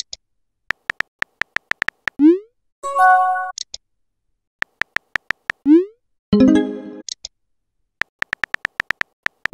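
Texting-app sound effects: runs of quick keyboard tap clicks as messages are typed, each run ending in a short rising pop as the message is sent. A brief pitched chime follows the first two sends, about 3 and 6.5 seconds in.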